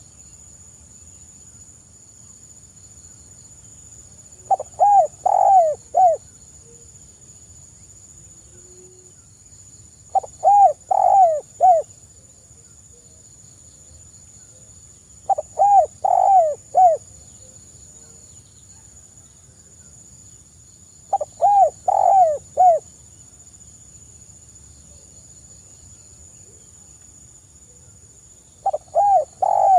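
Spotted dove cooing: five phrases of four or five low, hoarse notes each, repeated about every six seconds.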